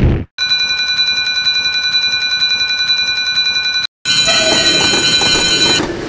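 A short burst of noise, then a railroad crossing warning bell ringing rapidly. It breaks off just before four seconds and a different-sounding crossing bell takes over until near the end.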